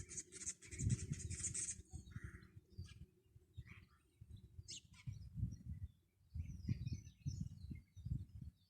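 Wild birds chirping and calling in a mountain morning chorus, with a dense run of high calls in the first two seconds and scattered chirps after. Irregular low rumbling bursts run underneath and are the loudest part, then stop abruptly at the end.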